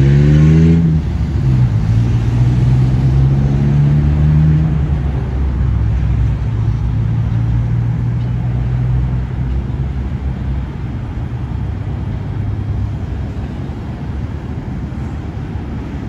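Road traffic: a vehicle engine accelerating with rising pitch, dropping as it shifts gear about a second in, then running steady for a few seconds before fading into the even rumble of passing traffic.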